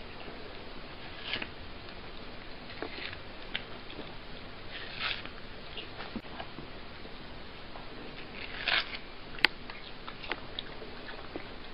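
A cat biting and chewing a wedge of watermelon: irregular short, crisp crunches over a steady hiss, with the sharpest click a little after nine seconds in.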